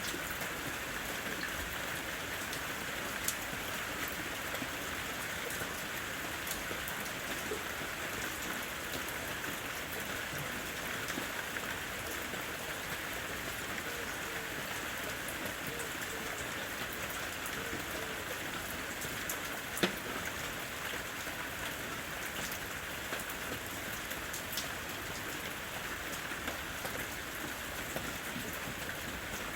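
Steady rain falling, an even hiss made up of many drops, with the occasional louder single drop standing out, most clearly about three seconds in and again about two-thirds of the way through.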